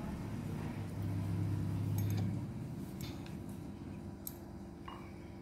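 Low steady hum that swells a little about a second in and fades back after about two and a half seconds, with a few faint clicks.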